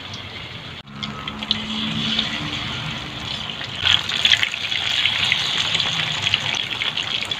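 Flour-battered giant prawns deep-frying in a wok of hot oil: a continuous sizzle with crackling. It gets louder after about a second, with a cluster of sharp spattering crackles around four seconds in.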